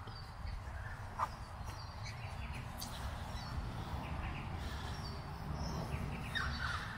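Outdoor background: birds chirping now and then over a steady low rumble, with a few faint clicks.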